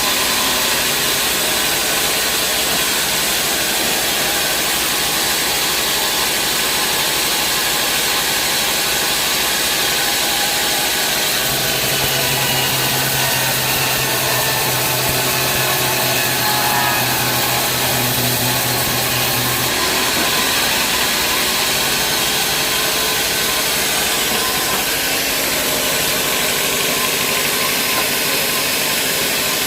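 Large sawmill band saw running and cutting through a log, a steady loud noise with no break. A lower motor hum joins about a third of the way in and stops about two thirds of the way through.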